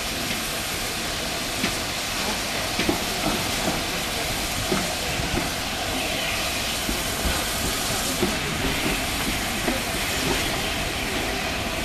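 Steam locomotives hissing steam while a train of coaches moves slowly through the yard. There are scattered clanks and clicks of wheels and couplings over the rails throughout.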